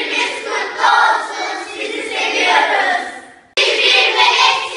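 A group of students' voices singing or calling out together in chorus, breaking off abruptly about three and a half seconds in and starting again at once.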